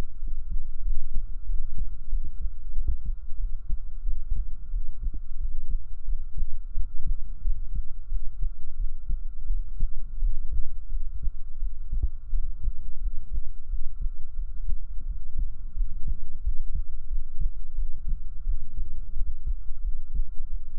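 A real human heartbeat recorded up close through binaural microphones, a continuous run of deep, low thumps. A faint steady hum sits under it.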